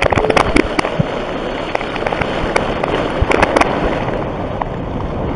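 Water churning and spraying up from the underwater blast of a large Korsar 50000 firecracker: a loud steady rush, with a scatter of sharp cracks through the first few seconds.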